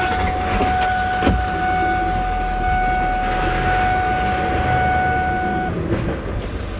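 A steady electronic tone inside a car's cabin holds for about six seconds and cuts off near the end, over the low rumble of the idling engine. A single click comes about a second in.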